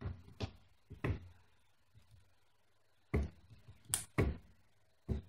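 Handling a Casio pocket scientific calculator: a scattered series of about seven short clicks and light knocks as it is set down on the paper and its keys are pressed.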